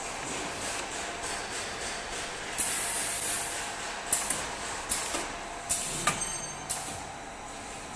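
Pneumatic clamps and cylinders of a single-head uPVC window welding machine working: a long hiss of air about two and a half seconds in, then a series of short, sharp air blasts with clacks, roughly one a second, over a steady machine hum.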